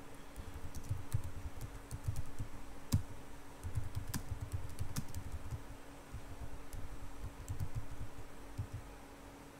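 Computer keyboard being typed on in irregular runs of keystrokes, a few keys struck harder than the rest. The typing trails off near the end.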